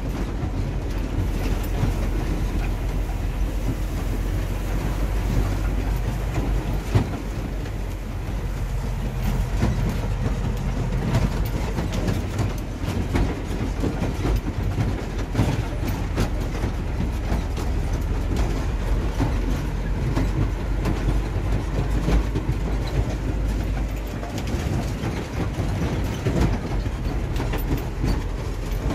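Old dump truck heard from inside its cab while driving over a rough dirt track: a steady low engine rumble under constant rattling and knocking from the cab and body.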